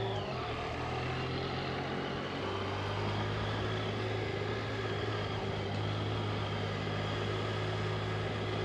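Vehicle engines at a race track: a higher engine note falls away about a quarter second in, leaving a steady low engine drone that shifts slightly in pitch a little over two seconds in.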